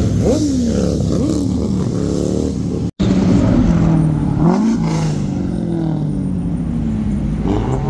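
Car engines revving and driving past, their pitch rising and falling several times, with the sound cutting out for an instant about three seconds in.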